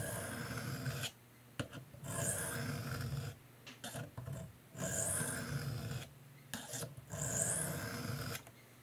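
A knife blade stroked across a diamond sharpening plate, making a gritty rasp on each pass: four slow strokes about a second long, with short pauses between.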